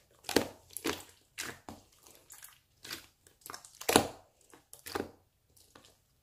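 Marbled slime being squished and pressed by hand, giving irregular wet clicks and pops, roughly two a second, that stop shortly before the end.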